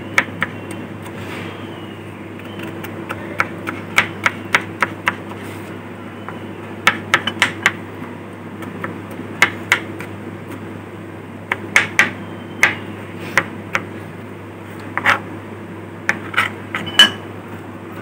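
Kitchen knife dicing cucumber on a plastic cutting board: sharp taps of the blade striking the board, coming in short irregular clusters with pauses between them.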